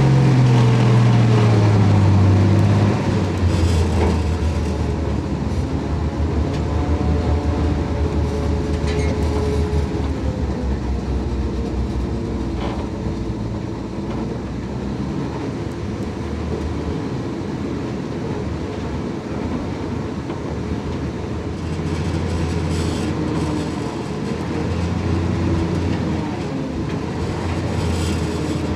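Dodge M37 military truck's engine running as it drives slowly over a dirt trail. The engine note drops in pitch over the first two seconds, then settles into a steady low drone with a few faint knocks.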